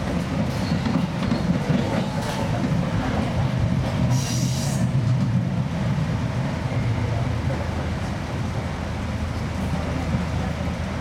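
Seibu 2000 series electric train running, heard from the driver's cab: a steady low rumble of wheels on rail, with one brief high wheel squeal about four seconds in.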